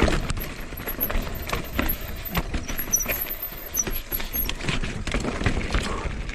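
Mountain bike rattling down a rocky trail: tyres rolling over stones and the bike knocking and clattering with irregular sharp hits, over a steady low rumble.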